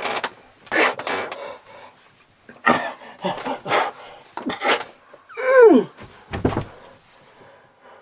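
A person panting and grunting with effort as if straining under a heavy weight, with a drawn-out groan falling in pitch about five and a half seconds in, followed by a low thump.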